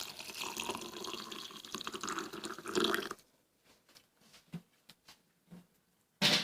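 Boiling water being poured into a glass over lemon pieces, ginger and mint leaves, a steady pour that stops about three seconds in. A short, sharp sound comes near the end.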